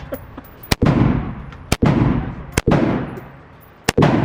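Four gunshots fired at a steady pace, about one a second. Each shot cracks sharply and rings out with a long fading echo.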